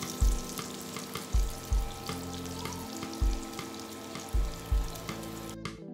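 Shrimp coated in semolina and spices sizzling steadily in hot oil in a frying pan, the hiss cutting off suddenly near the end. Background music with a steady low beat plays under it.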